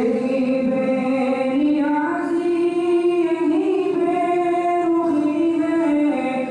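A young man's solo voice singing a nazam, an Urdu devotional poem, unaccompanied, in long held notes that step up and down.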